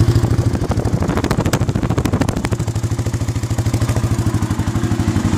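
2008 Arctic Cat 650 H1 ATV's single-cylinder four-stroke engine idling steadily in neutral, with a run of sharper ticking for a second or two about a second in.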